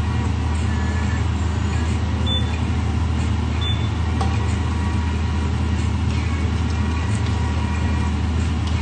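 Shrimp and vegetables cooking in a frying pan in a little broth: a steady sizzle over a low, even hum, with a few faint clicks of the spoon against the pan as they are stirred.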